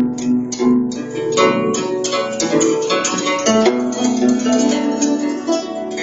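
Guzheng played with finger picks: a steady stream of quickly plucked notes over low notes left ringing.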